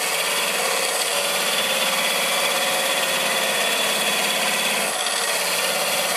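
Thin parting tool cutting into the base of a mesquite vessel spinning on a wood lathe: a steady scraping hiss over the running lathe.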